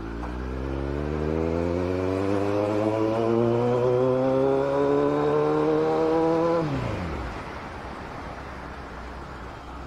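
Kawasaki Z900's inline-four engine pulling hard, its revs climbing steadily for about six and a half seconds, then falling away quickly about seven seconds in. After that mostly wind and road noise remain.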